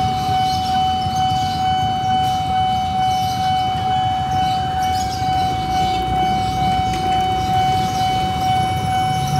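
Railway level-crossing warning alarm sounding one steady, unbroken high tone while the signals flash for an approaching train, over a low rumble of idling motorcycle engines.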